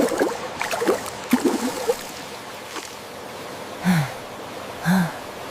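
Steady rushing water of a cartoon waterfall. Over it come several short, quick, gliding vocal sounds from a cartoon character in the first two seconds, then two short low hum-like calls about four and five seconds in.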